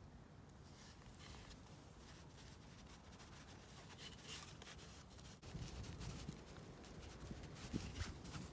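Faint scratchy rustling and small ticks of hands handling a hafted stone axe, fingers moving over the wooden handle and the fibre lashing around the pitch-set head.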